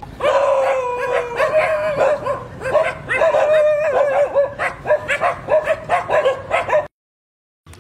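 A dog whining and yelping in long wavering cries mixed with short barks, cutting off suddenly about a second before the end.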